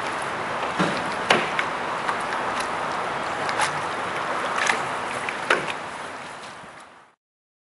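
Steady rushing wind noise on the microphone, with a handful of sharp knocks and splashes from a canoe paddle as it is stroked and handled close by. The sound fades out near the end.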